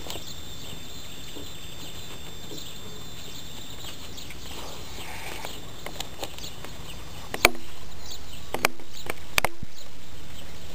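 A Japanese Spitz chewing a huhu beetle: faint small clicks of chewing, then three sharp crunches about a second apart in the second half.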